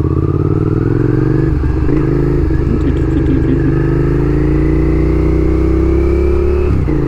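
A 2006 Suzuki SV650's 645 cc V-twin engine pulling under acceleration, its revs climbing steadily through the gear. Near the end the revs drop sharply on an upshift, with a shorter break about one and a half seconds in.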